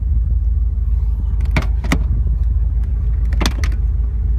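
Sharp clicks and knocks from the BMW M6 Gran Coupe's rear seat-release levers and seatbacks as the rear seats are folded down from the trunk, a pair about a second and a half in and more around three and a half seconds in, over a steady low rumble.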